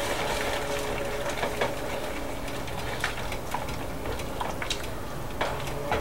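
Wire whisk working a thick roux-and-chicken-stock gravy in a pan, over a steady low hiss, with a few light clicks of the whisk against the pan.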